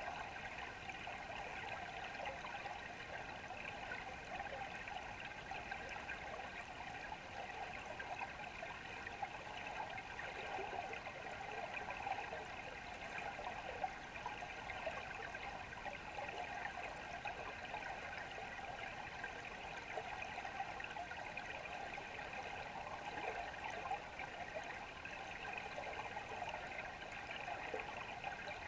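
Steady rush of flowing brook water heard underwater, with a few faint clicks.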